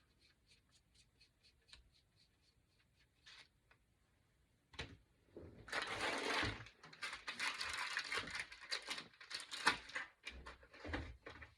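A few faint ticks, then from about halfway in several seconds of close rustling and rubbing: a baby wipe being pulled out and rubbed over paint-smeared fingers.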